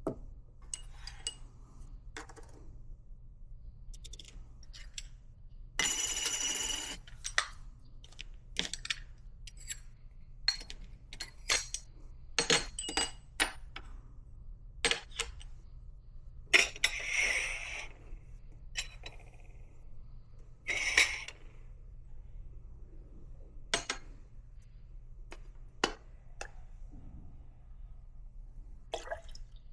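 Small clinks, taps and clicks of metal coffee-making gear being handled and set down, with a few brief louder rattles in between.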